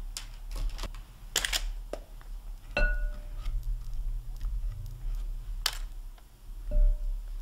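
A dipping fork and spatula tapping and scraping against a glass bowl of melted chocolate coating. Two of the taps, about three seconds in and near the end, make the bowl ring briefly.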